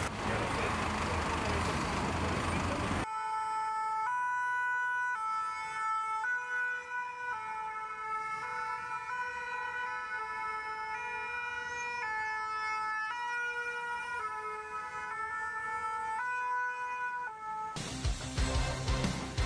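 Motorway traffic noise for about three seconds, then cut off sharply by a clean run of steady pitched tones that step from note to note about once a second.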